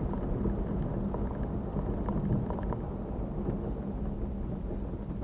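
A Mitsubishi Pajero's engine and road noise heard from inside the cabin while driving: a steady low drone over a rumble of tyres and road.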